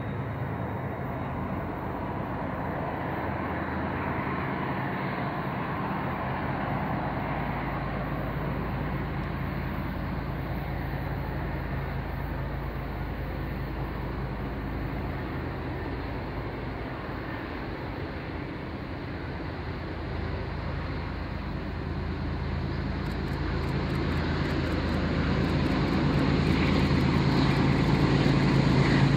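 Diesel locomotives working in the distance: a steady low engine drone that grows steadily louder over the last several seconds.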